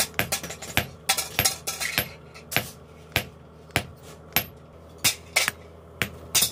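Hand hammer forging red-hot steel held in tongs on a steel block, with sharp metallic strikes about two a second and unevenly spaced, some followed by a brief high ring.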